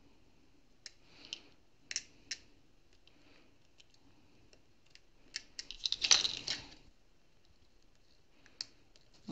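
Scattered light clicks and taps of a small cutting tool at the edge of a diamond painting canvas, with a short, louder burst of crackly scraping about six seconds in as stray glue is cut away.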